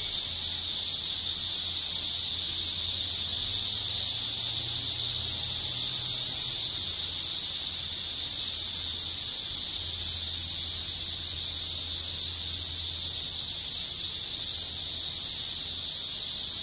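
A chorus of cicadas buzzing, a continuous high shrill drone that holds steady without a break, with a faint low hum underneath.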